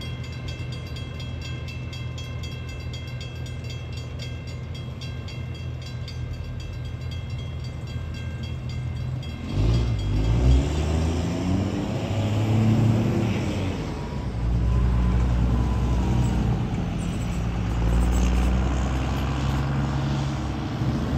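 Railroad crossing signal bell ringing steadily over the low steady rumble of a passing train; about nine seconds in the bell stops as the gates lift. Then road vehicles pull across the tracks, their engines revving up as they pass, and these are the loudest sounds.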